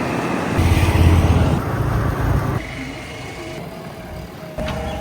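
Diesel engine of a JCB 3DX backhoe loader running, growing louder about half a second in and dropping back down after about two seconds.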